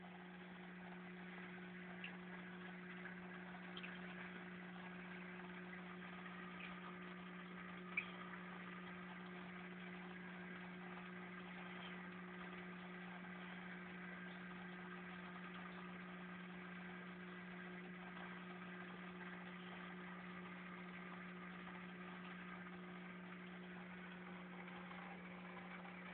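Steady low electrical hum over a faint even hiss, with a few small clicks, the sharpest about eight seconds in.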